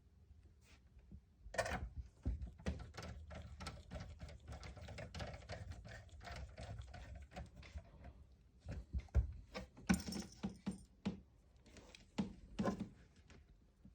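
Rapid small clicks and light metallic rattling from screws, a screwdriver and metal parts being handled during reassembly of a PlayStation 3 console. The clicking comes in irregular runs, with a louder cluster about ten seconds in.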